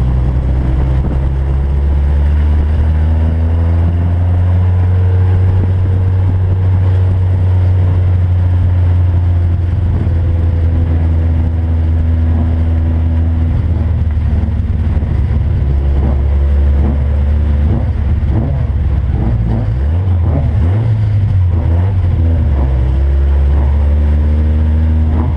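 Race car engine heard from inside the stripped, roll-caged cabin, running hard during the race, its pitch rising and falling with the throttle. About twenty seconds in the note breaks up unevenly for a couple of seconds before steadying again.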